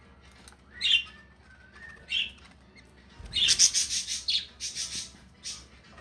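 Budgerigar chirping: two short single chirps in the first few seconds, then a quick run of loud, high chirps and chatter through the second half.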